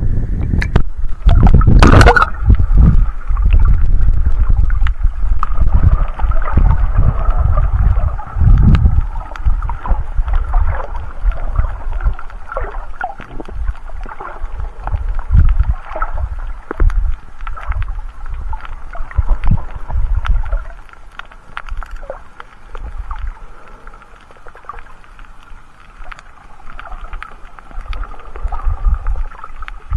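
Muffled underwater water noise on a snorkeller's waterproofed action camera: a low, surging rumble with scattered small clicks, and a splash about two seconds in as the camera goes through a surface wave. The rumble eases off after about twenty seconds.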